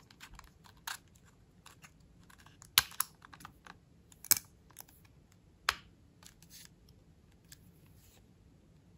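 Close-up handling of unboxing packaging: scattered light clicks and taps, with three sharper clicks about three, four and a half and nearly six seconds in.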